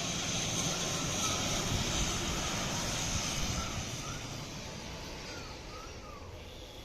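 ATR twin-turboprop airliner on landing approach, its engines and propellers running with a steady drone that fades over the last few seconds as it moves away.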